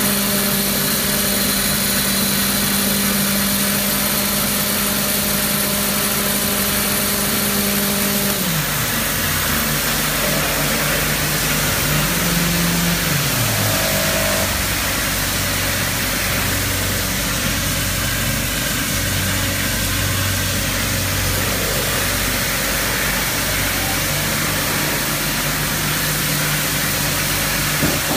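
Coil nail production machinery running: a steady, loud mechanical din. Under it a motor hum slides down in pitch and fades about eight seconds in, and a second, shorter hum slides down about thirteen seconds in.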